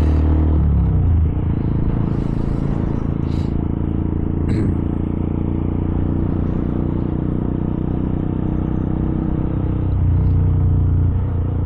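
Honda 125 cc single-cylinder small-bike engine running at a steady road pace under way. The throttle eases off about a second in and opens up again for a second or so near the end.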